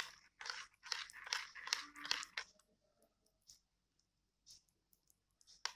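A metal spoon stirring thick batter in a glass bowl, mixing in salt: a quick run of irregular wet scrapes against the glass that dies down after about two and a half seconds, then a few faint taps and one sharp clink near the end.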